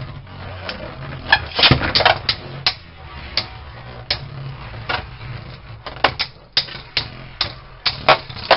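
Two Beyblade Burst spinning tops whirring in a plastic stadium and clacking together again and again as they collide. The sharp hits come at irregular spacing, bunching together over the last few seconds.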